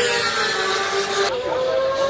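Racing motorcycle engine held at high revs on a straight: a steady, high-pitched engine whine that dips briefly about a second and a half in, then picks up again.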